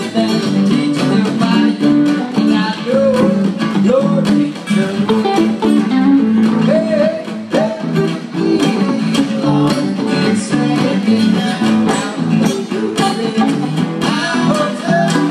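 Guitar music with a guitar strummed in a steady rhythm.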